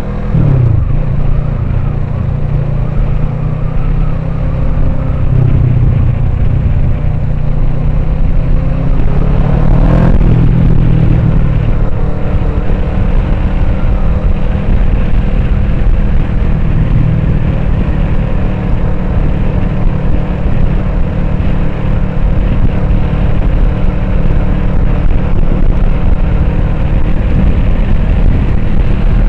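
Kawasaki Ninja 650's parallel-twin engine running while the motorcycle is ridden, heard with a steady rush of wind noise at the helmet. The engine note rises and falls with the throttle and gear changes, most plainly in a rev about ten seconds in.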